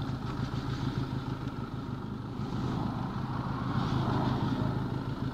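Benelli 502C's parallel-twin engine running steadily at low revs, as at idle.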